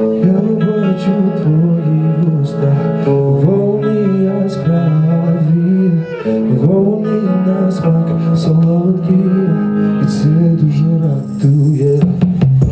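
A man singing a song into a microphone over instrumental backing music played through the club's sound system.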